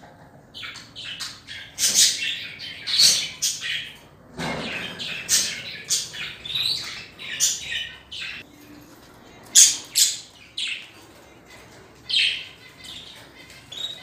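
Pet budgerigar calling: an irregular run of short, high chirps, some louder and sharper than others.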